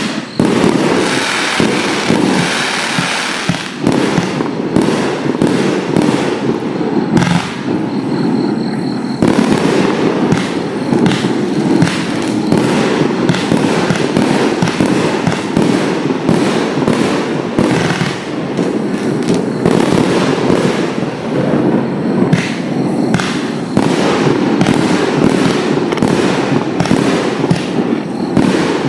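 A Vivid Pyrotechnics Face Off firework cake (53 shots, 30 mm) firing a continuous barrage: rapid, overlapping launch thumps and bursting shells, many each second.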